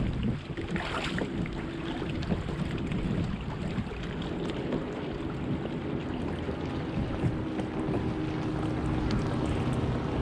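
Wind buffeting the microphone over water noise, with a faint steady low hum underneath.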